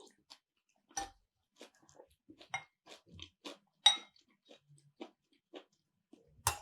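A person chewing food close to the microphone: a run of soft, irregular mouth smacks and clicks, with a sharper one about four seconds in.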